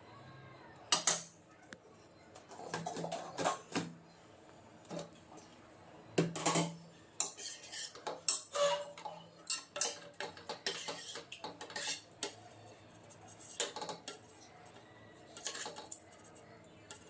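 Dishes and metal cutlery clinking and clattering in irregular knocks and scrapes, the loudest about a second in and again around six seconds.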